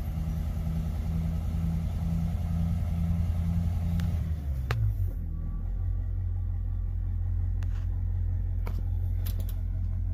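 Diesel-pusher motorhome engine idling, heard from the driver's seat. A rhythmic pulse of about two beats a second stops about halfway through, leaving a steady low hum. A few sharp clicks of dash buttons come near the end.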